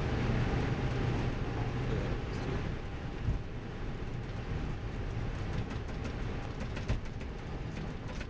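Airbus A320 cockpit noise while taxiing after landing: a steady low hum with a rushing noise over it, and two brief knocks, about three and seven seconds in.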